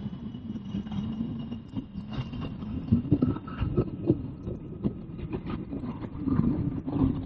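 Cessna Citation Longitude's Honeywell HTF7700L turbofans whining during the landing rollout, the whine fading as the jet moves away. Gusty wind buffets the microphone with an irregular low rumble throughout.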